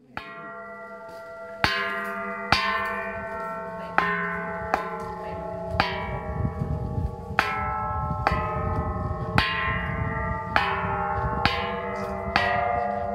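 A row of hanging metal temple bells struck one after another with a wooden pole: about eleven strikes, roughly one a second, each bell ringing on and overlapping the next.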